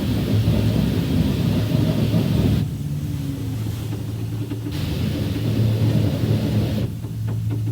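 Water spraying onto a truck in two spells of a few seconds, stopping about two and a half seconds in and starting again about two seconds later, then cutting off near the end, over a steady low machine hum.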